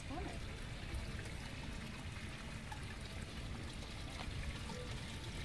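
Small fountain jets splashing steadily into a garden pond, a continuous trickling of water.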